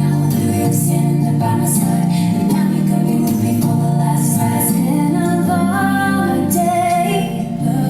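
Music: a song with a woman singing a melody over held low chords.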